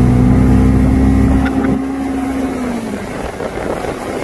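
Motorboat engine running steadily while towing a tube, a low even hum that drops away between about a second and a half and three seconds in. After that, wind and water rush on.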